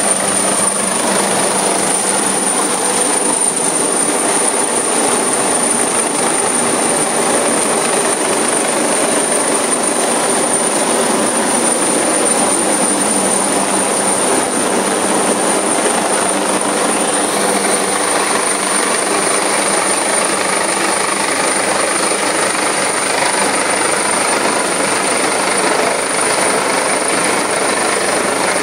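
Search-and-rescue helicopter hovering close overhead, its rotor and turbine noise loud and steady with a constant high whine, while it lowers a rescuer on its hoist cable. The noise turns sharper about two-thirds of the way through.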